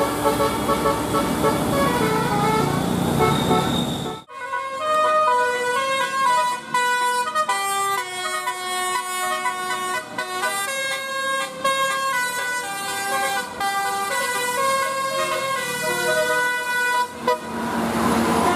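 A melody of held notes stepping from pitch to pitch, clean and without background, between about four seconds in and near the end; before and after it, a noisy stretch with horn-like held tones.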